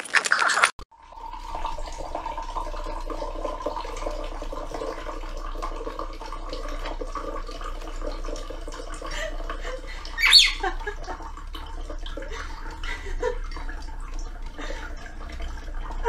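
Water poured from a bottle in a thin, steady stream into a drinking glass, trickling and gurgling. About ten seconds in, a parrot gives one short, sharp squawk.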